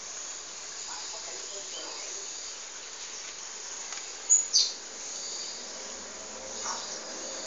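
Steady chirring of insects, with a couple of short high chirps about four and a half seconds in, one falling in pitch.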